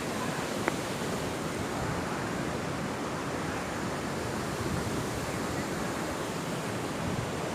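Waterfall rushing steadily, with one sharp click less than a second in.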